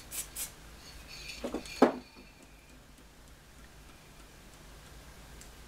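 Short hisses from an aerosol glitter spray can at the start, then two sharp knocks a little before two seconds in. Only faint small ticks follow.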